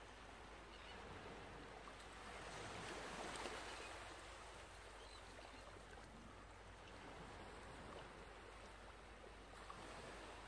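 Near silence: faint steady hiss with a soft rustle of cotton and denim fabric being handled and folded, a little louder about three seconds in.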